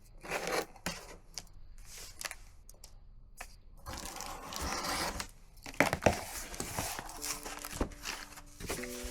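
Close handling noises: crinkling, tearing and scraping with scattered sharp clicks and knocks. A few soft music notes come in about seven seconds in.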